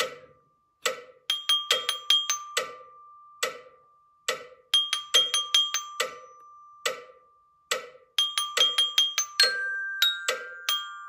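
Glockenspiel (student bell kit with aluminium bars) played with two hard mallets at a slow 70 beats a minute: short repeated phrases of struck notes, each bar ringing on between strokes. Higher notes come in near the end.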